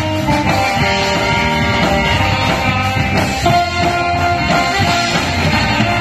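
A marching band playing live: a saxophone melody over bass drum beats.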